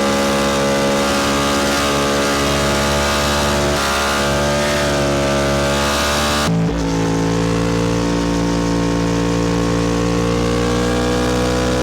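Yamaha R1 inline-four motorcycle engine running through an aftermarket SC1-R exhaust, a steady, even note with a slight swell in pitch a little past a third of the way in and a sudden change in tone about two-thirds of the way through.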